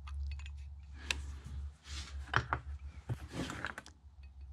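Scattered small clicks, taps and scrapes of a metal tube being set down over a brass valve in a tractor fuel lift pump body, over a steady low hum.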